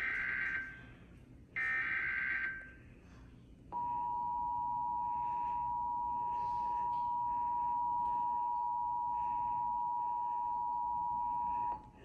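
Emergency Alert System signalling: two short screeching SAME digital header bursts, about a second apart, then from about four seconds in the EAS two-tone attention signal (853 and 960 Hz together) sounding steadily for about eight seconds and cutting off just before the end. This sequence marks the start of a new relayed alert.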